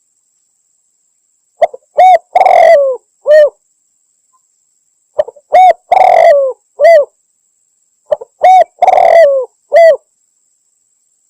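Spotted dove cooing, a lure call billed as a female calling to a male: three phrases about three seconds apart, each two short coos, a longer quavering coo, then a short closing coo, with clean silence between.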